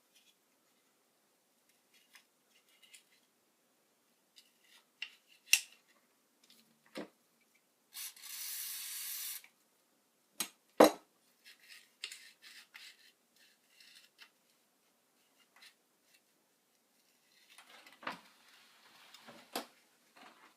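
Small tools and parts handled on a workbench: scattered clicks and knocks, a hiss lasting about a second and a half about eight seconds in, a sharp knock about eleven seconds in, and scraping near the end.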